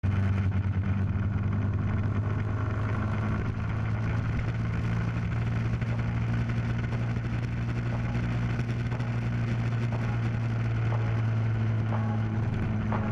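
Motorcycle engine running at a steady cruising speed, a constant low hum with wind and road noise over it.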